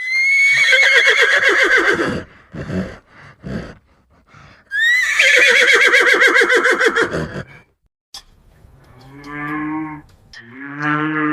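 Farm animals calling: two long, loud, quavering neigh-like calls, each starting high and falling away. Then, near the end, two lower, steady lowing calls of a cow mooing.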